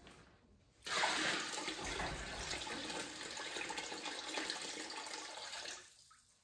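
Water running hard from a tap for about five seconds, starting suddenly about a second in and tailing off near the end.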